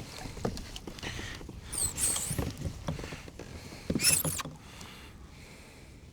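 A hooked pike thrashing while it is handled in a kayak: irregular knocks, scuffs and rustles against the hull and gear, with two louder sudden bursts about two and four seconds in.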